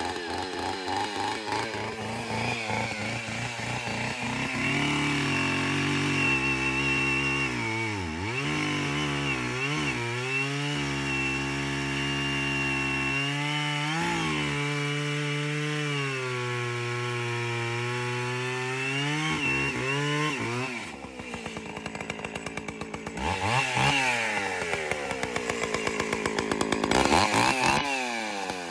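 Vintage two-stroke chainsaw running under load, its engine pitch sagging and recovering several times as it cuts. About three-quarters through it drops to a slow, pulsing idle, then revs up again twice.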